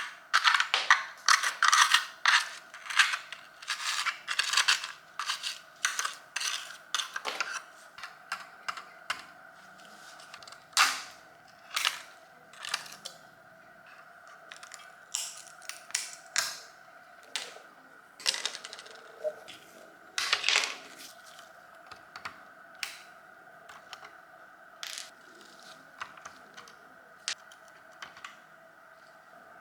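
Irregular sharp clicks and clinks from hands and tools working on small hard parts, thick in the first few seconds and again around the middle, over a faint steady hum.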